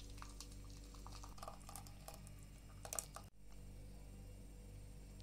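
Faint scattered clicks and light taps, with a small cluster about three seconds in, from a pan of thick date sauce being handled and poured into a glass bowl. A steady low electrical hum lies under it.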